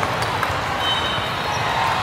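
Steady crowd hubbub of spectators in a large sports hall during a volleyball rally, with a couple of sharp slaps of the ball off players' arms or hands about half a second in and thin high squeaks around the middle.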